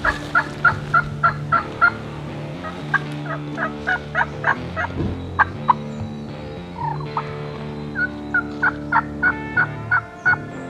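Wild turkey calling in several runs of short, sharp, evenly spaced notes, about three a second, over a steady low drone.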